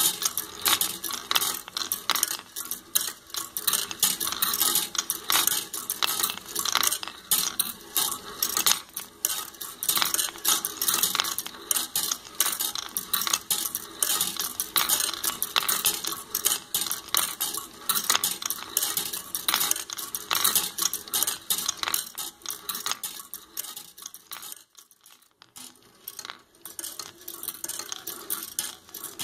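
Steel ball bearings rolling and clattering along the brass-rod tracks of a wooden marble machine: a dense, continuous run of metallic clicks and clinks as the balls drop, hit rails and knock together. The clatter briefly drops away about 25 seconds in, then resumes.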